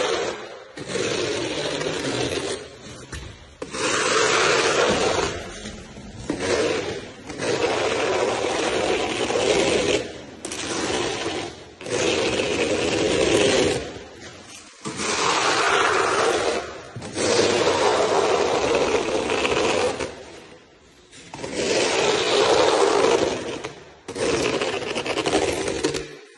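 Gauge rake with a notched blade drawn again and again through wet self-levelling floor compound, a scraping stroke every couple of seconds, each lasting one to two seconds.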